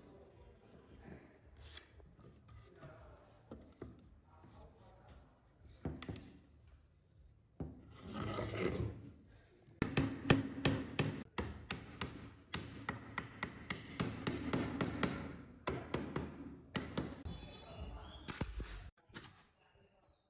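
Wood being worked by hand: rasping, rubbing strokes with many short sharp knocks that come thickest in the second half.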